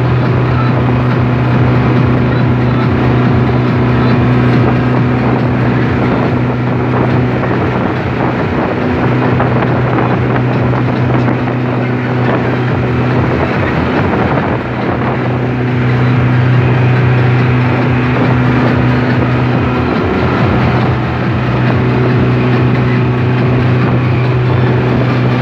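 Outboard motor running steadily at speed, with the rush of water and wind from the boat's wake beneath the engine tone.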